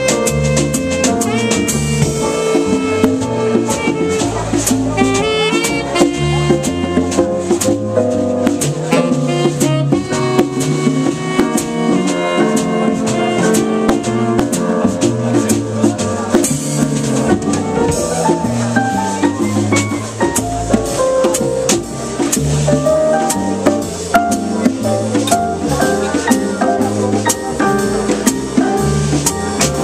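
Jazz quartet playing live: a drum kit with busy cymbal strokes over a stepping bass line, with pitched instruments carrying the harmony and melody.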